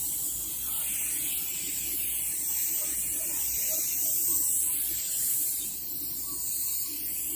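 Paint spray gun hissing steadily with compressed air, the hiss high-pitched and wavering a little as it is worked.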